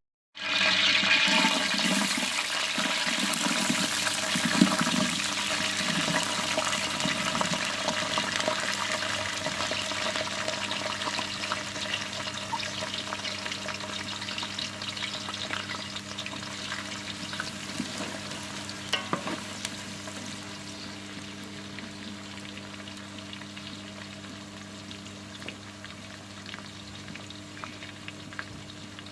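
Food frying in hot oil in a cooking pot: a loud sizzle that starts suddenly and slowly dies down, with a few light knocks and a steady low hum underneath.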